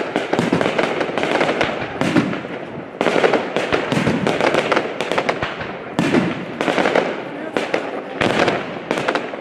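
Fireworks display: dense crackling with sharp bangs, with a fresh loud volley starting every one to three seconds.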